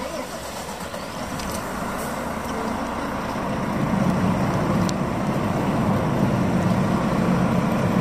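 A motor vehicle's engine running with a steady low rumble that grows louder about four seconds in, with a few light clicks on top.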